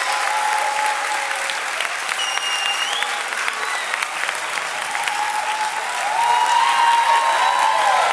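Audience applauding, with a few voices calling out over the clapping, louder about six seconds in.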